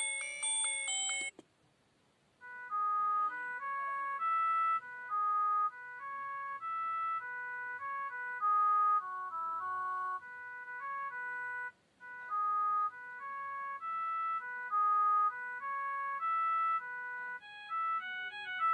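Ringtone of a myPhone Rumba mobile phone: a simple electronic melody of single beeping notes, pausing briefly about twelve seconds in and then repeating. The tail of a brighter, chime-like tone cuts off about a second in before the melody starts.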